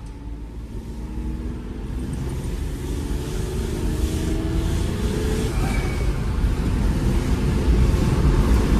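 Volkswagen Polo TDI turbodiesel engine accelerating hard, heard from inside the cabin, with the sound of its turbo spooling up. The engine note climbs in pitch and the whole sound grows steadily louder.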